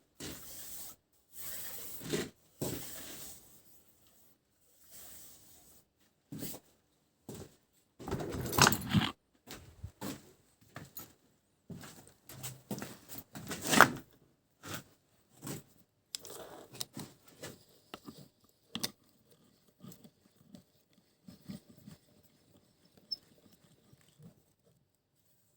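Intermittent handling noises: scattered short clicks, scrapes and rustles with silent gaps between them, and no machine running.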